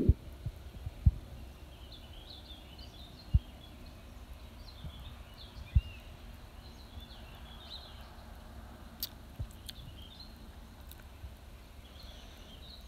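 Songbirds chirping and singing in short high notes scattered throughout, with a few sharp low thumps in the first half.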